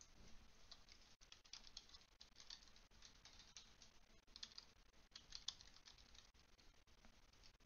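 Faint computer keyboard typing in short runs of quick keystrokes.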